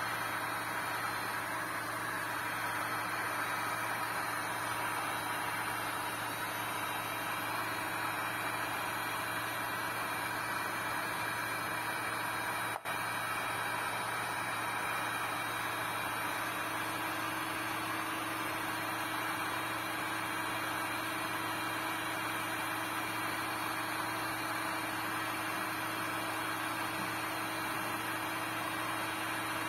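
Heat gun running steadily, its fan blowing with an even rushing noise and a low hum, while it shrinks clear heat-shrink tubing over a battery pack. The sound breaks off for an instant about thirteen seconds in.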